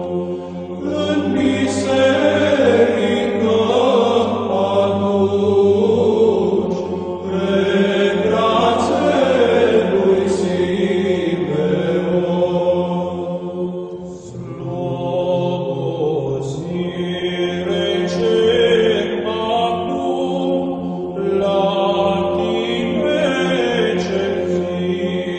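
Church chant: voices singing a slow, wandering melody over a steady held drone note, with a short pause between phrases about halfway through.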